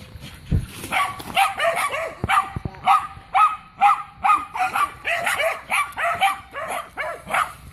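Dogs barking over and over, a rapid string of short barks about two a second, starting about a second in after a single low thump.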